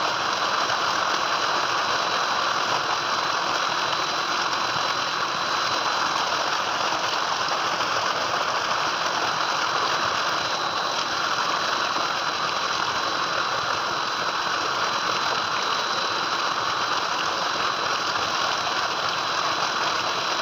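Water gushing steadily from a tubewell's discharge pipe and splashing into a concrete tank, with a thin, steady high whine running beneath it.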